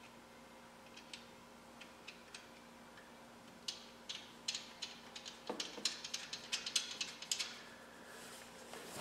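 Socket ratchet clicking in short runs while lock nuts are tightened onto the winch mount's bolts. The clicks are scattered at first and come quick and dense from about halfway through, with a duller knock about five and a half seconds in.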